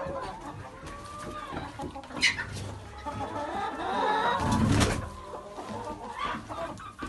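Hens clucking, many short calls overlapping, loudest about two-thirds of the way through.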